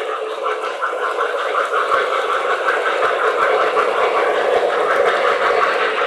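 Lionel O-gauge model train running on its track: a steady running noise with rapid fine clicking from the wheels and motor.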